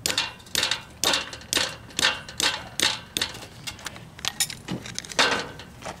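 Hammer tapping a form stake held in locking grip pliers down into the gravel base, a series of sharp blows about two a second.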